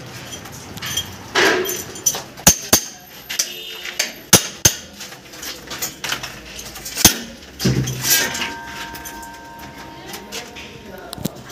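Scattered sharp metallic knocks and clinks from a diamond core drill and its steel rig stand being handled and adjusted into position, with the drill motor off.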